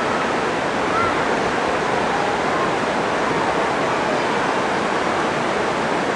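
White water of a mountain river cascading over boulders, a steady rushing noise.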